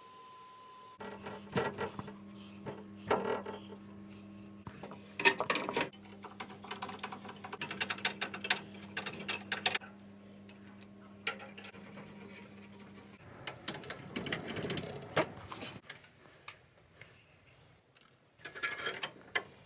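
Metal tools and parts clinking, clattering and rattling as they are handled during a boiler service, over a steady machine hum that stops about two-thirds of the way through.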